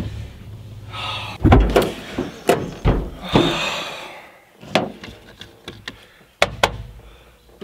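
Several heavy thunks and clunks from a car's body: a door shutting and the hood being unlatched and raised, with a short rushing noise in the middle.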